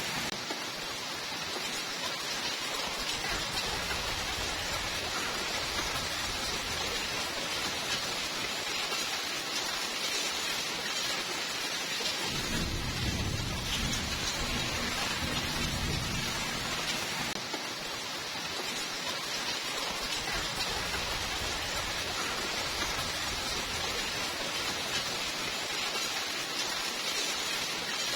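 Steady rainfall, a dense even hiss of raindrops. About halfway through, a low rumble of thunder rolls for several seconds and then fades.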